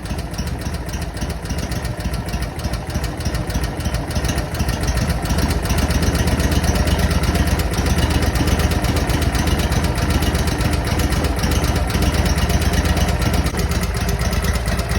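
Boss Snowrator's engine running steadily at idle, getting a little louder about five seconds in.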